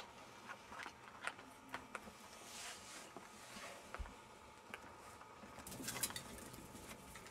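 Jack Russell Terrier puppies' paws pattering on the floor, with scattered light clicks of claws and a louder rustling scuffle about six seconds in.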